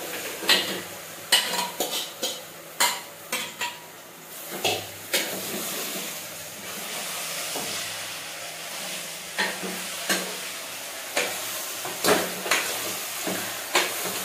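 A steel spoon clinking and scraping against a metal pressure-cooker pot as chopped ridge gourd is tipped in and stirred. A steady sizzle of frying joins from about five seconds in.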